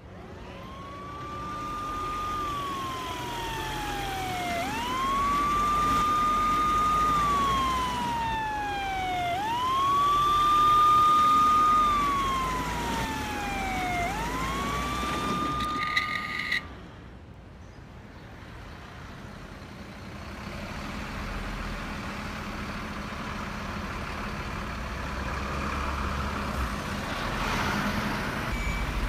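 Toy ambulance siren wailing. Each cycle sweeps up quickly, holds high, then slides slowly down, repeating about every four and a half seconds for three cycles. It cuts off suddenly a little past halfway, leaving a quieter low rumble.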